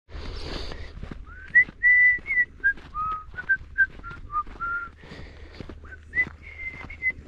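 A person whistling a tune: a string of clear notes, some held and some sliding up or down between them.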